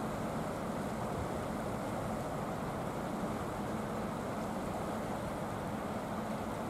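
Steady rushing of the fast-flowing Ahr river running over its stony bed, with a faint low hum that comes and goes underneath.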